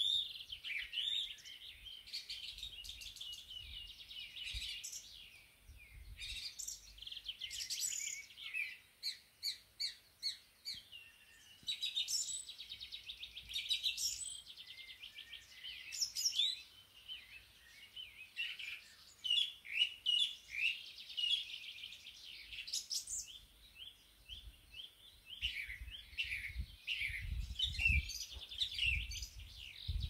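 Several songbirds singing at once: overlapping chirps, whistles and rapid trills that go on without a break. A low rumble joins in near the end.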